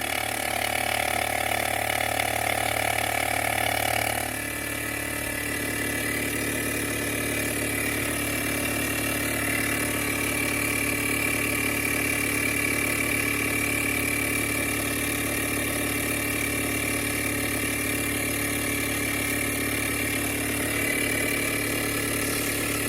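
A motor running steadily while the lawn mower tire's new inner tube is aired up, its tone changing about four seconds in.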